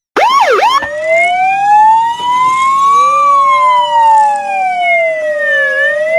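Electronic police siren of a toy ride-on police motorcycle: a few quick yelps, then a slow wail that rises for about three seconds, falls again and turns upward once more near the end.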